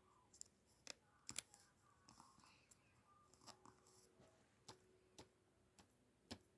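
Near silence: room tone with a dozen or so faint, brief clicks scattered through it.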